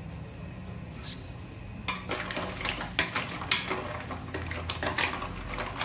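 Mussels in their shells being stirred in a stainless steel pot, with shells and the stirring utensil clattering and knocking against the pot in an irregular run that starts about two seconds in, over a low steady hum.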